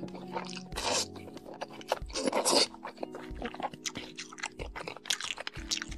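Mouthful of braised noodles slurped up in two noisy pulls, then close chewing with many quick wet clicks. Soft background music plays underneath.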